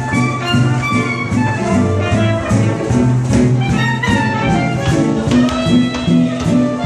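Live small jazz band playing swing at dance tempo, with piano, double bass and drums, the bass stepping from note to note.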